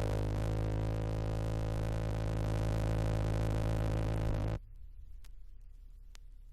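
Electronic synthesizer drone, a dense chord of steady held tones, that cuts off suddenly about four and a half seconds in. It leaves only a low hum and faint hiss, with a couple of faint clicks.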